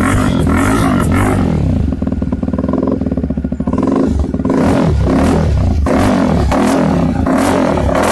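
Yezdi Scrambler's single-cylinder engine running through an aftermarket stainless steel dual exhaust, revved repeatedly. About two seconds in it drops back to a rapid, even idle putter, then is revved again from about four and a half seconds in.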